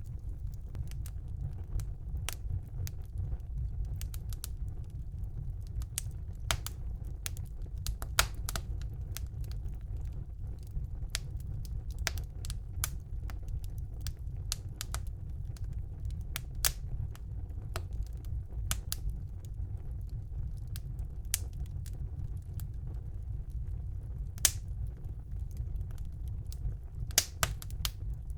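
Wood fire burning in a fireplace: a steady low rumble of the flames with irregular sharp crackles and pops, bunched in flurries, the loudest pops near the end.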